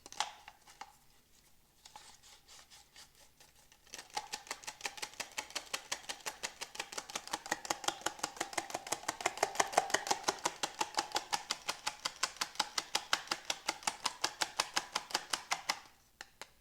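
A fork beating egg in a bowl for an egg wash: fast, steady clicking of about five strokes a second, each with a short ring from the bowl. It starts about four seconds in and stops shortly before the end.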